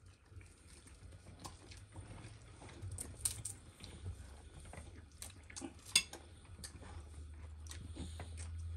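Cutlery and plates clinking at a meal table: scattered light clicks of forks and knives on crockery, the sharpest about six seconds in. A steady low hum runs underneath and grows louder near the end.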